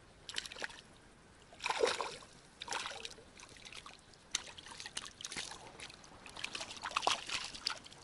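Water splashing and sloshing in the shallows at the edge of a pond: a series of short, irregular splashes, the loudest about two seconds in and again near the end.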